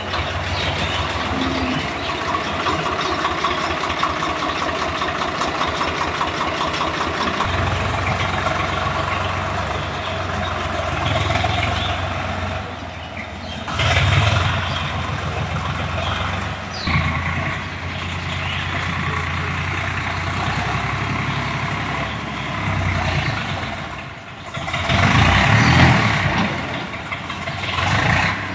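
Farm tractor's diesel engine running steadily as it hauls a loaded soil trolley, the engine note swelling louder several times, most strongly a few seconds before the end.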